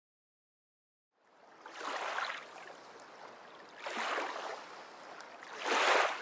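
Ocean wave sound effect: rushing water that swells and fades about every two seconds, starting after a second or so of silence.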